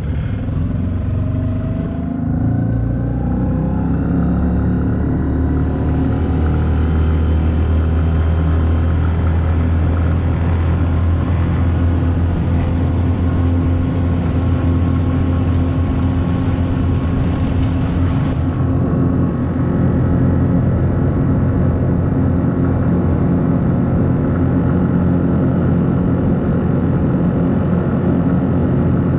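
Selva 9.9 hp four-stroke outboard motor running at full throttle on a top-speed run, its pitch rising over the first few seconds as the boat picks up speed, then holding steady.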